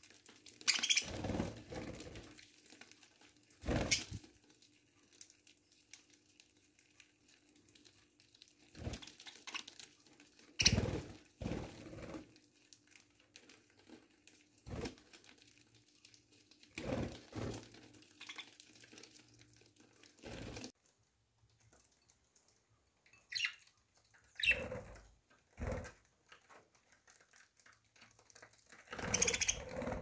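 Budgerigars pecking at seed in a hand and shuffling about, making irregular taps, scrabbles and rustles every second or two with quieter stretches between.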